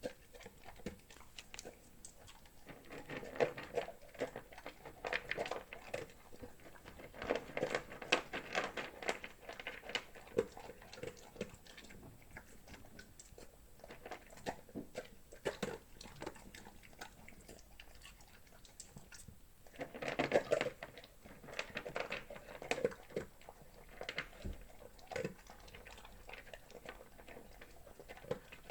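A dog crunching and chewing dry kibble in bouts, with sharp crunches and rattles of the pellets. The busiest bouts come a few seconds in, again around eight seconds, and once more past the twenty-second mark, with quieter chewing between.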